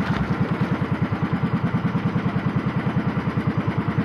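Small boat engine of a bangka (outrigger boat) running steadily, with a fast, even chugging beat of about a dozen pulses a second.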